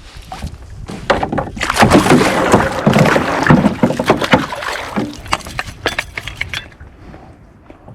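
Hooked fish thrashing and splashing at the water's surface beside a canoe, a loud rush of splashes and knocks that swells about a second in and dies down after about six and a half seconds.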